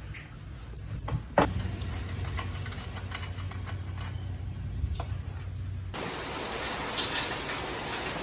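Power drill running steadily for about four and a half seconds, starting just after a sharp click, backing out a screw. It stops abruptly and gives way to a steady hiss with a few scattered ticks.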